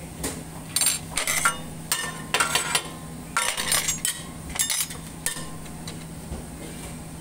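A metal spatula clanking and clinking against a stainless steel teppan griddle, a quick irregular run of sharp metallic strikes that stops about five seconds in. A steady low hum runs underneath.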